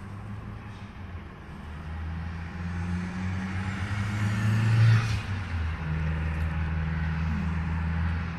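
Road traffic heard from inside a car: a low engine rumble that grows louder to a peak about five seconds in as a vehicle passes, then settles into a steady low engine hum.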